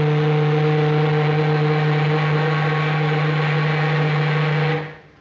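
A ship's horn sounding one long, steady, low blast, dying away about five seconds in.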